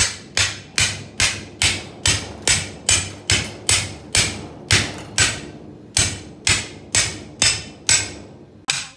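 A steel cleaver wedged in a giant flathead catfish behind the head, struck again and again on its spine with a second cleaver to drive it through the fish. The knocks are sharp and ring like metal on metal, coming a little over two a second at a steady pace, with a brief break about halfway.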